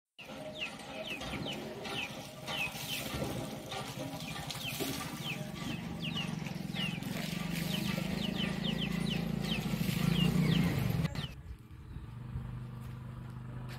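Small birds chirping, many quick high falling chirps in a steady run, over a low humming drone that grows louder and then drops away sharply about eleven seconds in.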